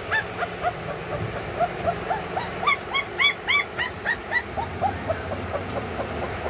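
German shepherd puppy whining and yelping in a quick run of short cries, about three a second, each rising and falling in pitch, loudest about three seconds in.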